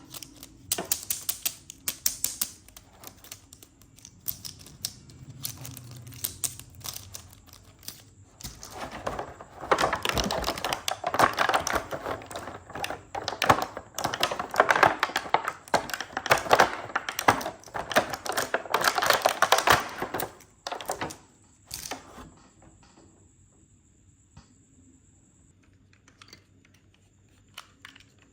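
Toy car packaging being handled and opened by hand: rapid clicking and crackling of plastic and cardboard in bursts, thinning out to a few faint ticks near the end.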